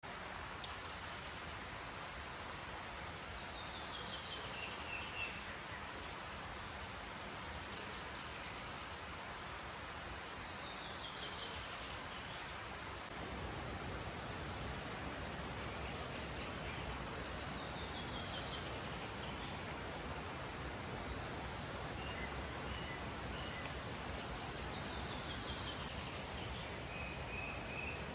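Tropical rainforest ambience over a steady hiss. A bird repeats a falling run of quick notes about every seven seconds. About halfway through, a high steady buzz joins in and stops a couple of seconds before the end.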